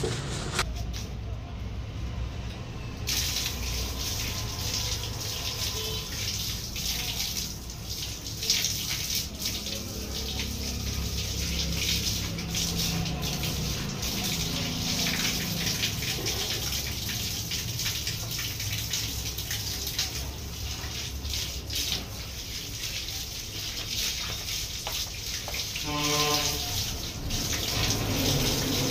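Running water pouring steadily and splashing over a man and the concrete floor as he washes cement dust off himself. It starts about three seconds in.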